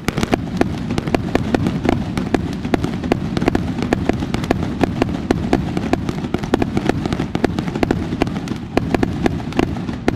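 Fireworks going off in a dense, continuous barrage of rapid cracks and bangs over a low rumble.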